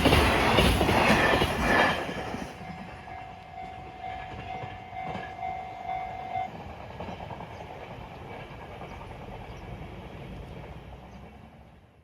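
Train passing over a Japanese level crossing, its wheels clacking over the rail joints, until the last cars clear about two seconds in and the sound drops away. The crossing's electronic warning bell keeps ringing on its steady repeating note until it stops about six and a half seconds in.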